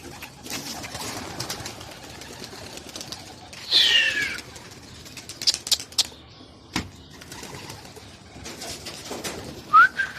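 Pigeons: two short, high squeaky calls, the first falling in pitch about four seconds in and the second rising near the end, with a few sharp clicks and rustles between them.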